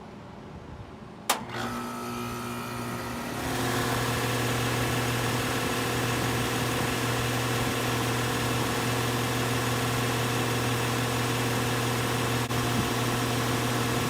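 2016 Rheem Classic 2-ton air-conditioner condensing unit starting up: a sharp click about a second in, then a hum, then a couple of seconds later the unit steps up to a loud, steady run. The motor is pretty loud, which the owner thinks means it is starting to fail.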